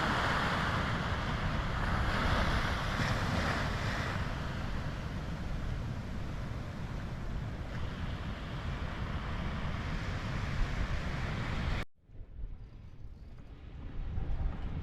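Surf washing against the shore, with wind on the microphone. About twelve seconds in it cuts off abruptly, leaving a much quieter steady hiss.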